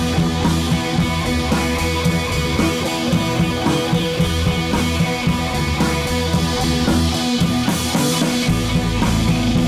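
Background rock music with drums and guitar and a steady beat.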